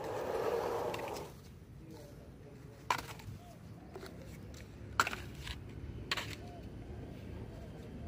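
Muddy plastic toys being handled on sandy ground: a brief scrape at the start, then three sharp plastic clicks and knocks as the toys are picked up.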